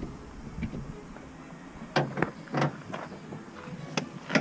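Short clicks and knocks of plastic and metal parts being worked into place inside a Renault Trafic's passenger door as the door handle assembly is refitted: a cluster about two seconds in and a couple more near the end.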